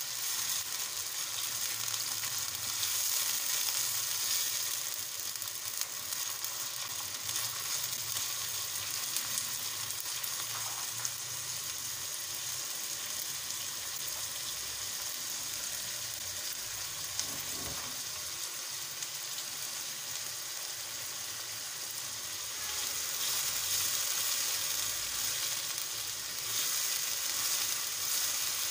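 Sliced onions sizzling steadily in hot oil in a kadai, stirred now and then with a silicone spatula; the onions are being fried only lightly, not browned. The sizzle grows louder for a few seconds near the start and again near the end.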